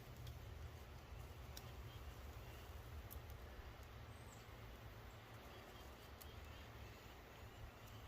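Near silence: faint outdoor ambience with a steady low rumble and a few faint clicks.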